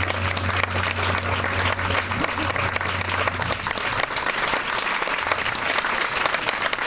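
Audience applauding at the end of a dance performance, a dense steady clatter of many hands clapping. A low steady note underneath stops about halfway through.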